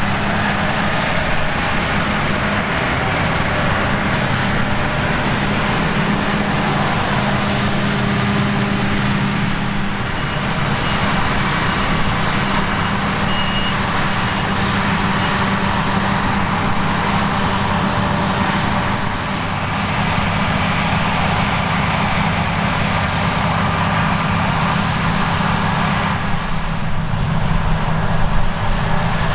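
Claas Lexion 780 TT combine harvester running steadily at work, a deep engine drone under a dense mechanical clatter from the threshing and header drives.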